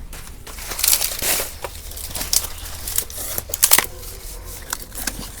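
Kitchen handling noises as a kadai is set up on the stove: rustling and crinkling, with a few sharp clicks and knocks.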